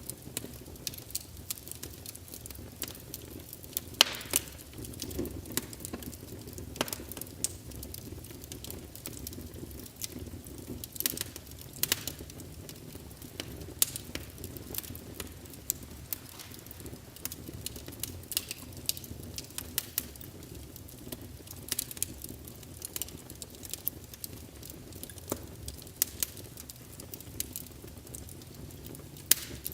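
Wood fire burning in a fireplace, crackling and popping at irregular moments over a steady low hiss and rumble of the flames.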